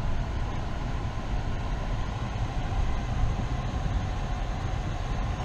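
Steady low rumble of a car's engine and tyres heard from inside the cab while driving slowly.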